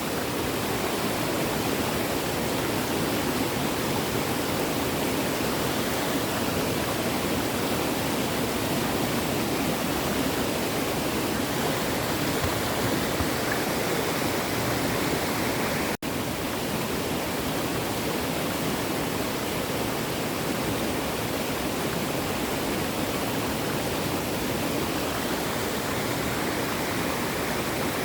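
Small stream running steadily over rocks, a constant rush of water. It drops out for an instant about halfway through and then carries on.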